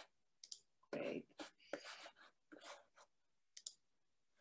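Faint computer mouse clicks, a few sharp and scattered, with a brief low murmur of voice about a second in.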